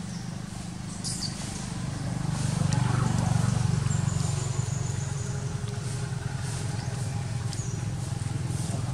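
A steady low engine hum from a motor vehicle running nearby, growing louder a couple of seconds in, with a few faint, short high squeaks over it.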